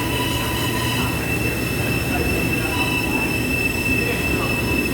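R42 subway cars rolling along the track with a rumble and a high, steady wheel squeal.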